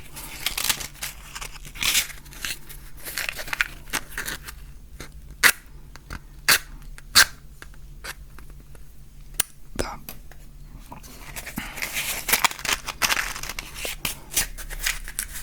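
Matches scraped again and again across a matchbox striker strip: scratching strokes and sharp clicks, several louder ones a little before the middle. The striker is worn and the matches are not lighting.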